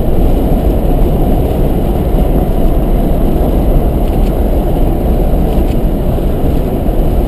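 Steady low rumble of a car driving at motorway speed, tyre and engine noise heard from inside the cabin.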